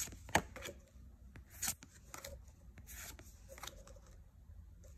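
Pokémon trading cards being slid off a stack one by one by hand: faint soft swishes of card against card, with one sharp tap about a third of a second in.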